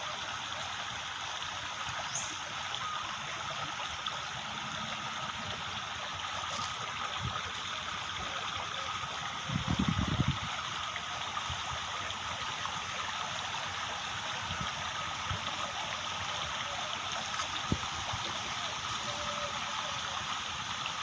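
Steady rush of running water, with a brief low rumble about halfway through.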